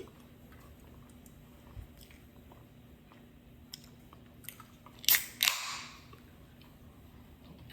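Close-miked eating: a few small mouth clicks, then two loud crunching bites a little past halfway, the second trailing off briefly as it is chewed.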